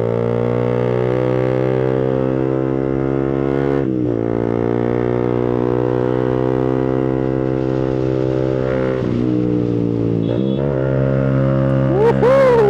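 Suzuki GSX-S150's single-cylinder engine running while riding at road speed, its note slowly climbing, with brief dips in pitch about four seconds in and twice more around nine to ten seconds. Near the end a short tone rises and falls in pitch over the engine.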